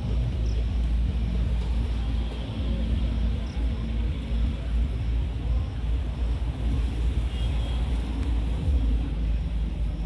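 Steady low rumble of nearby road traffic.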